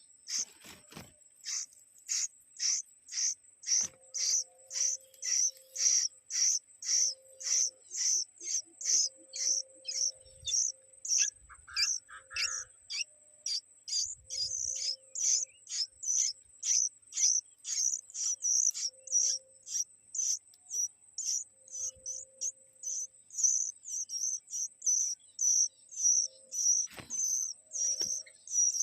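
Short high-pitched chirps repeated evenly, about twice a second, over a steady high-pitched insect drone.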